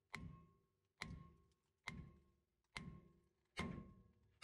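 Hammer blows on a rust-seized rear brake rotor of a 2010 Ford Ranger, struck over the lug nuts to free it from the hub. There are five blows a little under a second apart, and each hit rings briefly in the metal and fades. The rotor is stuck from the truck sitting unused.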